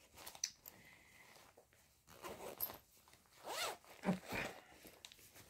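Zipper of a cloth knitting tote bag being pulled in a few short strokes, starting about two seconds in.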